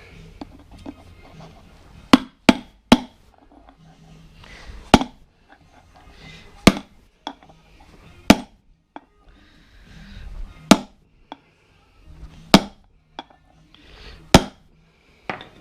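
Hammer striking a socket used as a driver to seat a bushing in a wheel hub: about ten sharp, ringing metal blows, three in quick succession about two seconds in, then single blows roughly every two seconds.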